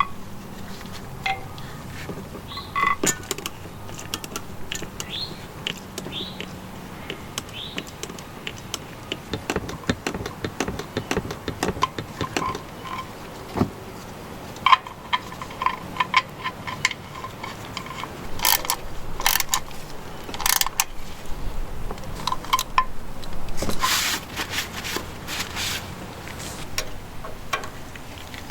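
Hand tools and metal parts clicking, clinking and scraping in scattered bursts, some clinks briefly ringing, as work is done on the tractor.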